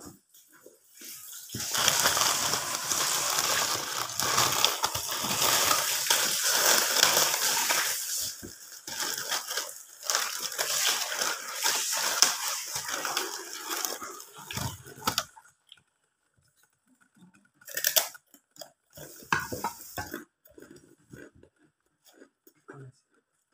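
Plastic bag crinkling and rustling loudly for over ten seconds as it is handled and opened. Near the end come a few short, separate crackles.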